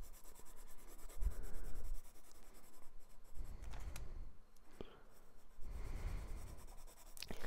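Graphite pencil scratching on sketchbook paper in irregular shading strokes, with a few low bumps from the hand moving on the pad.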